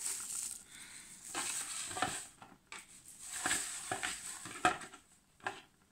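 Decorative basket straw rustling and crackling as it is pushed by hand into a small plastic basket cut from a fabric-softener bottle, with a few short taps along the way.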